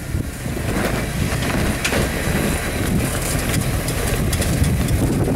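Engine of a lifted Jeep Wrangler TJ Rubicon running steadily as the Jeep crawls up a steep rock ledge, with a few brief knocks over the engine sound.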